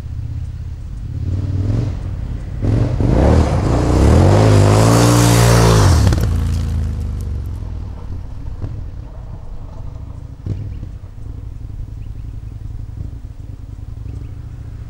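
A motorcycle speeding past: its engine note climbs and is loudest about four to six seconds in, then drops as it goes by, leaving a lower steady rumble.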